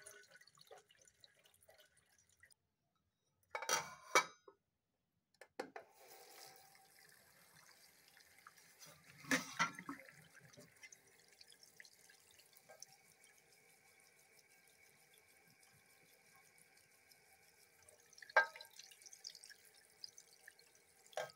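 Tap water running steadily into a sink and over a stainless-steel tumbler as it is scrubbed with a scouring sponge, with a few brief louder knocks or splashes as the tumbler is handled.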